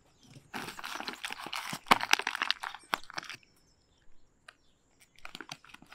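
Crinkling and crackling of a brown MRE pouch being handled and folded down, in dense bursts for about three seconds, then a few scattered crackles.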